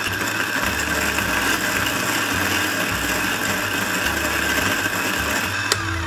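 Kalita NEXT G electric coffee grinder running, its ceramic burrs grinding coffee beans with a steady whine; it stops with a click near the end.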